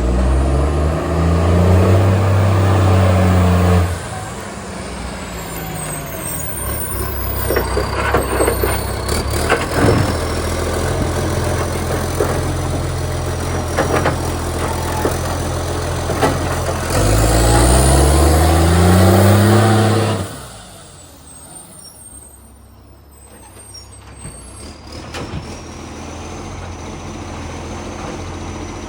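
Garbage truck engine revving hard twice through a leaking exhaust pipe, the leak making the revs very loud; each rev climbs and holds for a few seconds before dropping back. Between the revs the engine runs lower with a few knocks and clanks, and after the second rev the level falls away sharply to a quieter idle.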